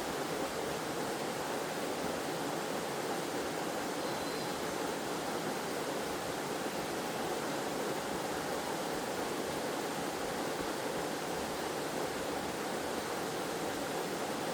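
Waterfall and stream water rushing steadily, an even hiss-like roar with no breaks.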